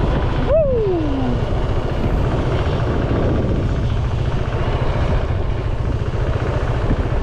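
Strong wind buffeting the microphone: a steady, loud low rumble. About half a second in, a short call falls in pitch.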